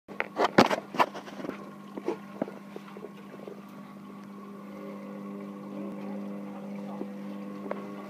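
Hotpoint WML560 washing machine turning its drum at the start of the spin after the wash: a steady motor hum that grows a little louder about halfway through. A few sharp knocks sound in the first second.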